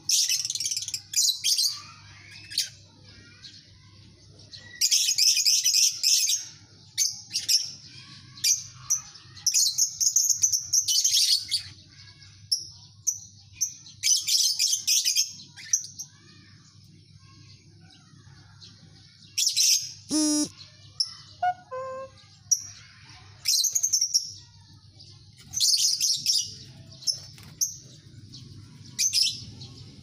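A colony of lovebirds chattering in shrill, rapid bursts of a second or two, again and again, with brief lulls between, over a faint steady low hum. About twenty seconds in, one call falls sharply in pitch.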